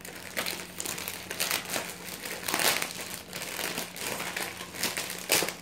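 A bag of fashion jewelry crinkling as it is opened and rummaged through by hand: an irregular string of crackles, loudest about two and a half seconds in and again near the end.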